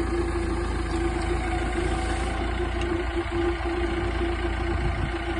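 Excavator engine idling steadily: a constant low rumble with a steady hum on top.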